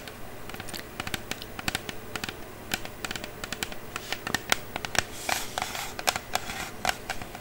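Fingernails tapping and clicking on a hard object in quick, irregular taps, with a brief scratch about five seconds in.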